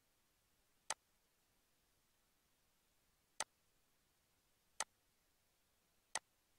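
Four single computer mouse clicks, sharp and spaced one to two and a half seconds apart, each selecting another model edge in CAD software; near silence between them.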